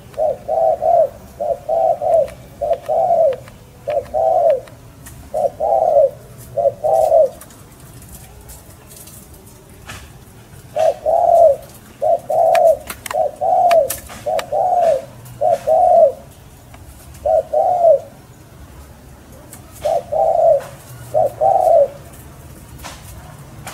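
Dove cooing: runs of short, low, repeated coos, broken by pauses of a few seconds.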